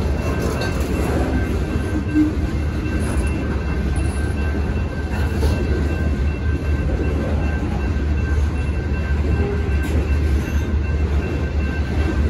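Freight train cars, boxcars and covered hoppers, rolling steadily through a grade crossing with a continuous low rumble of wheels on rail.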